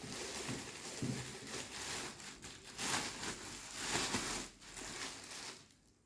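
Packaging rustling and crinkling as it is handled, an irregular scraping rustle that stops suddenly near the end.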